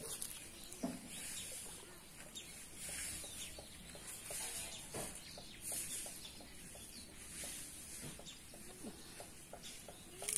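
Hands splashing and sloshing in shallow pond water in soft, irregular swishes, with birds calling in the background; from about halfway on, a quick run of short ticking calls, about three or four a second.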